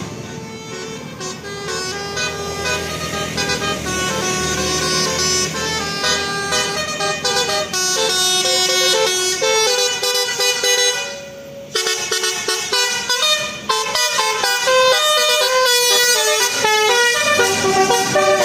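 Bus telolet horn of the Basuri type playing a quick tune of short stepped notes, with a brief break just before the midpoint before the tune carries on.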